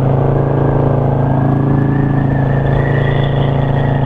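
Yamaha V-Star 650's air-cooled V-twin engine running at a steady cruise, heard from the rider's seat, with wind buffeting the microphone.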